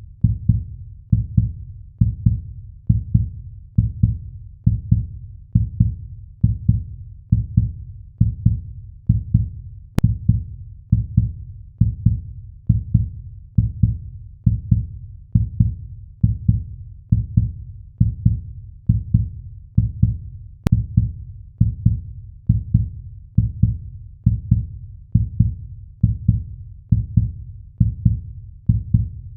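Heartbeat sound effect: deep, steady thumps repeating at an even pace.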